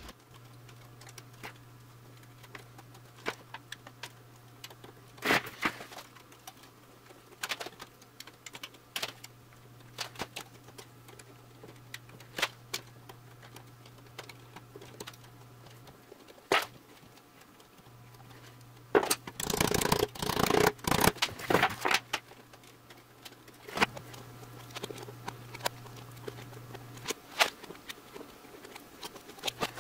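Pliers crimping the thin copper tube walls of a radiator core back together: irregular small metallic clicks and scrapes, coming thicker for a few seconds about two-thirds of the way through, over a steady low hum.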